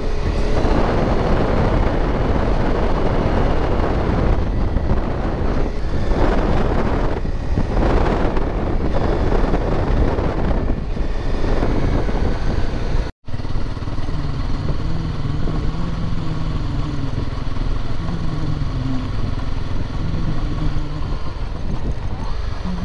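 Motorcycle riding over gravel: a loud rough rush of tyre and wind noise over the engine, then a brief cut to silence about thirteen seconds in, after which the engine's note comes through more clearly, rising and falling slightly.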